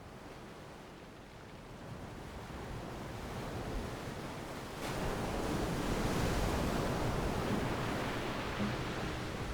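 Ocean surf on the Pacific shore: a steady rush of waves that swells, then a wave breaks suddenly about five seconds in and washes on loudly.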